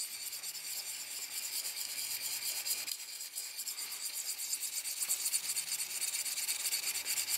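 Medium-grit sharpening paddle rubbed in quick, light strokes along a steel knife blade, a fast scratchy rasp as the edge bevel is honed, with a brief pause about three seconds in.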